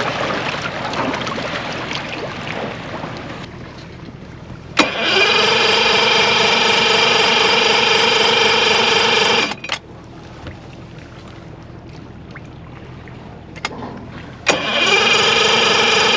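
The electric starter of a Yamaha outboard motor cranks twice. Each burst opens with a click and holds a steady whine for about five seconds, then cuts off. The motor does not catch after sitting for years, and the crew fear it is flooding and draining the battery.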